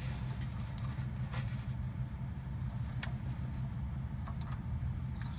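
A steady low rumble with a few faint clicks as a Fumoto oil drain valve on the engine oil pan is opened by hand.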